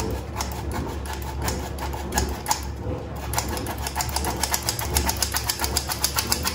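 Flour being sifted through a sieve: rhythmic shaking and tapping, uneven at first and settling into a fast, even patter about halfway through.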